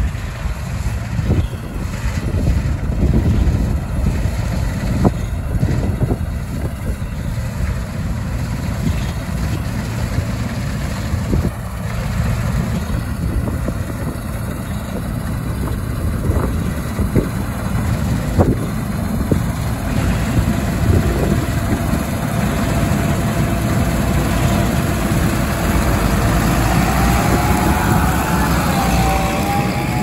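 Case IH 2388 Axial Flow combine harvester at work, its six-cylinder turbocharged Cummins diesel running steadily under load, with a tractor's diesel engine running alongside. There are a few short knocks in the first half, and a wavering whine comes in near the end.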